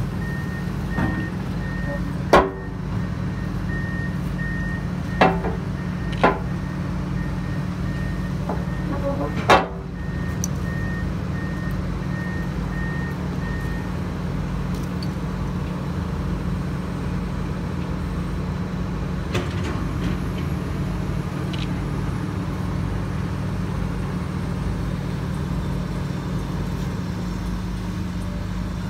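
Heavy construction machinery running steadily with a low drone, joined through the first half by a repeating high-pitched warning beep, with four sharp knocks in the first ten seconds.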